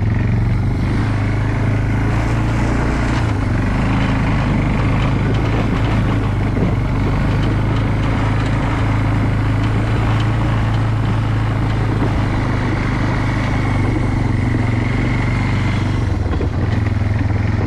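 Engine of a small off-road vehicle running steadily while driving across a field, its note changing near the end.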